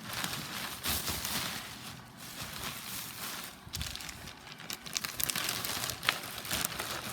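Plastic packaging crinkling and rustling as a model horse is unwrapped by hand, with a sharp click about six seconds in.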